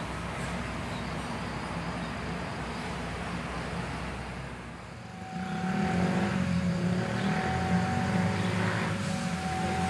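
Diesel locomotive running as it draws a passenger train slowly into a station. About five seconds in the sound becomes louder and closer, with a low engine hum and steady high-pitched tones over it.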